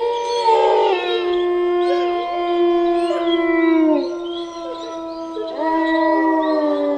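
A pack of wolves howling in chorus: several long, held howls at different pitches overlap. They slide down and fade about four seconds in, and new howls rise in about a second and a half later.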